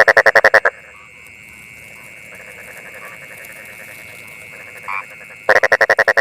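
Frogs calling: two loud bursts of rapid croaks, each about a dozen pulses packed into under a second, one at the start and one about five and a half seconds in. Under them runs a steady high-pitched chorus.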